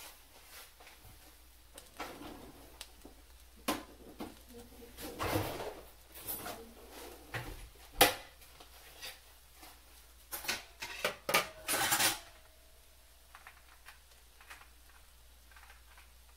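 Dishes and utensils clinking and knocking in a kitchen: a run of separate clinks and knocks, the sharpest about halfway through, then a quick cluster of clatters before it goes still.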